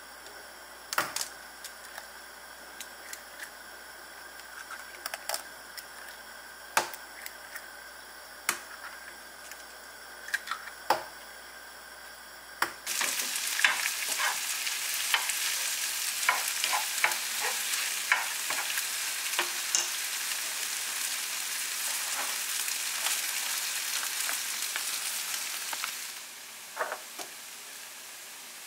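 Scattered clicks and taps around the frying pan at first. Then, a little before halfway in, a steady sizzle starts as tomatoes, spinach and scrambled egg stir-fry in the oiled non-stick pan, with clicks of stirring through it. The sizzle stops abruptly near the end.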